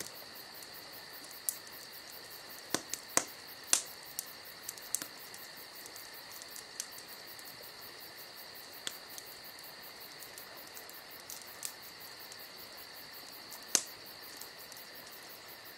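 Steady insect chorus, a continuous high chirring, with scattered sharp clicks: a few loud ones about three to four seconds in and another near the end.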